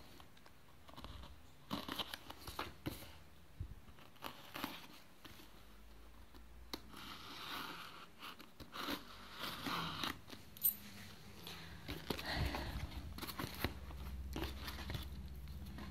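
Packing tape and a paper shipping label being picked at and torn off a cardboard box, with the cardboard flaps scraping and rustling as the box is pulled open; irregular small clicks and several short tearing rustles.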